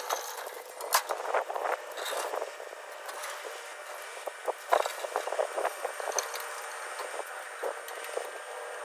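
Steel car-body rotisserie rolling on its caster wheels over concrete, with irregular clanks and rattles from the frame and the VW Karmann Ghia body shell mounted on it.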